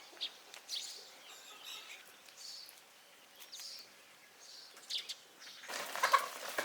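Birds chirping in short, scattered high chirps over a faint outdoor background, with a louder rustling noise starting near the end.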